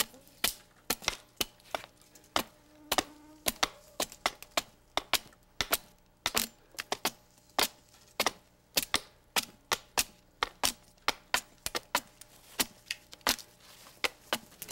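Hatchet blows hewing a long split wooden strip: sharp wooden knocks in quick, uneven succession, about three a second.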